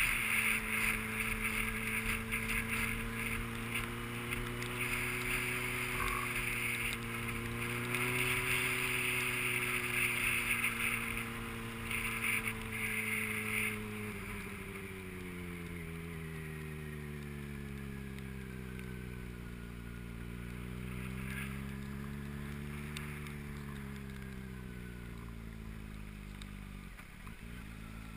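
A vehicle's engine running while driving, its pitch steady at first, then dropping about halfway through and rising and falling several times after. A hiss sits over the first half.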